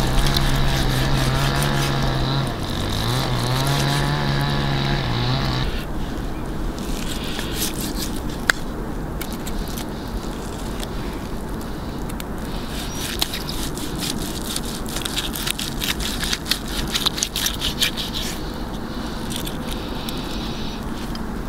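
A motor drones steadily for about the first six seconds, dipping in pitch once, then stops. After that, a long knife saws through the charred crust and meat of a tomahawk steak on a wooden board, with many small crisp crackles and scrapes that come in clusters.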